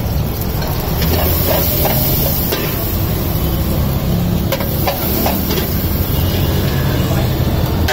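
Steel ladle knocking and scraping against an iron wok as fried rice is stir-fried, with several sharp clanks, over a steady low rumble and hiss.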